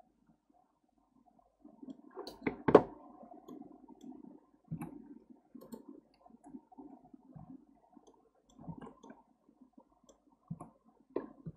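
Irregular clicking of a computer mouse and keyboard being worked at a desk, with a louder cluster of sharp knocks between two and three seconds in.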